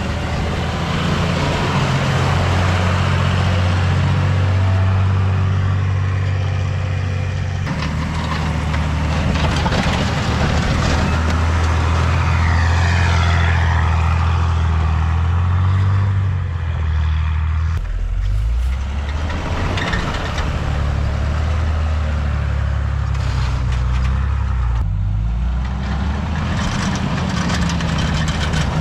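2003 Dodge pickup's engine running under load as it pushes snow with a plow blade. Its note changes several times.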